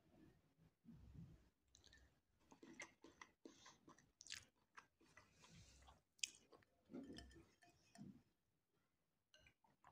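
A person quietly chewing a mouthful of kabsa rice with chicken, close to the microphone, in irregular bursts with a few sharp clicks, the sharpest about four and six seconds in.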